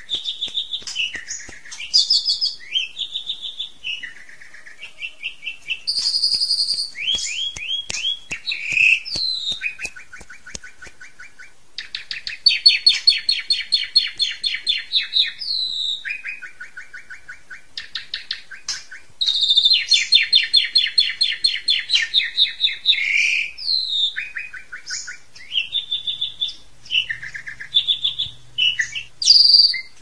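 Asian pied starling (jalak suren) singing a long, varied song of whistles and chattering notes with mimicked phrases of other birds. Two stretches of fast, rattling trills come near the middle.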